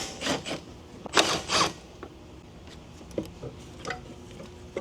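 A few sharp clatters and clicks of hand tools and metal parts being handled while a car door is taken off, loudest in the first two seconds, then a few fainter ticks.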